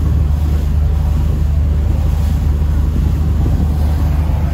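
Tour boat's engine running steadily under way, a loud low drone heard on board.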